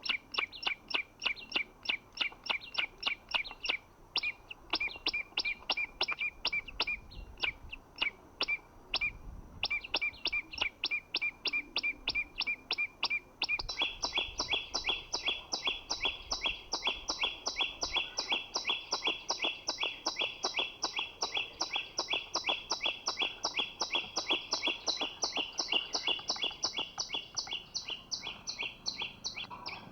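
Common iora calling: a long, rapid series of short, high chirps at a very regular pace, which changes about 13 seconds in to a fuller chirping on two pitches.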